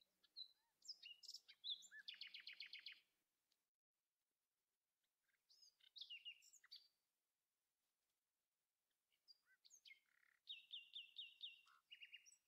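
A songbird singing faintly in three phrases of chirps and whistled notes. The first phrase ends in a rapid trill. The last has a run of quick repeated down-slurred notes near the end.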